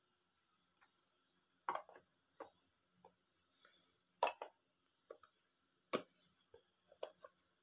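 Small plastic toy pots, lids and a kettle clacking lightly as they are picked up, set on a toy stove and fitted with lids: about ten short, irregular knocks.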